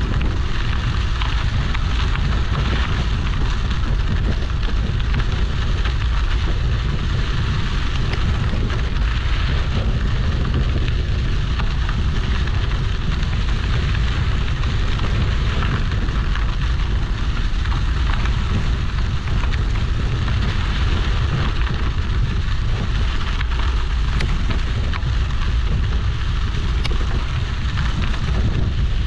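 Mountain bike riding a dirt trail, heard through a handlebar-mounted GoPro Hero 8: steady wind rumble on the microphone over the grainy rush of the tyres rolling on dirt.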